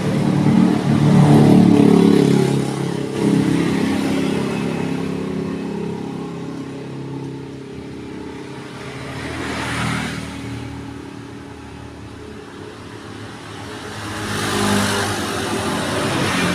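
A motor running, loudest in the first few seconds, its level rising and falling with swells about ten and fifteen seconds in.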